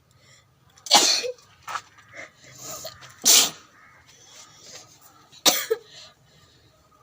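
Three loud sneezes about two seconds apart, with smaller breathy sounds between them, brought on by sniffing nasal snuff powder.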